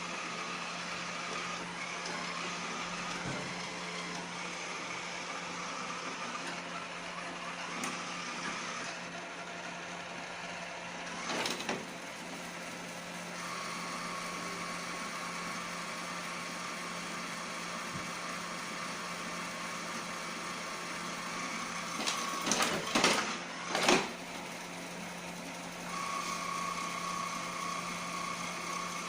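Iseelife robot vacuum running with a steady motor hum and a higher whine that fades and comes back. There is a knock about a third of the way in, and a cluster of louder knocks and clatters about three-quarters of the way through.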